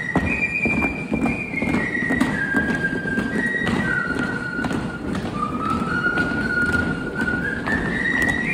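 A tune whistled as one high, pure melody line, stepping from held note to held note, over a continual clatter of thumps and taps such as marching feet or hooves.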